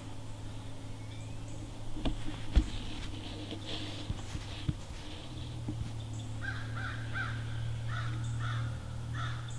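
Crows cawing in the second half, a run of short harsh calls two or three a second, over a steady low hum. A couple of sharp knocks sound about two seconds in.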